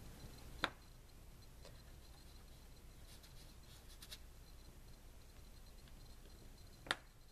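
Faint scratching of Crayola water-soluble oil pastel crayons and fingertips rubbing colour into damp watercolour paper. Two sharp clicks stand out, one about a second in and one near the end.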